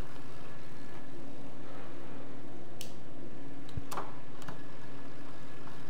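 Magicycle Ocelot Pro e-bike's chain and rear derailleur running steadily as the pedal is turned by hand and the rear wheel spins. A few sharp clicks around three to four seconds in come as the chain is shifted down from third to second gear.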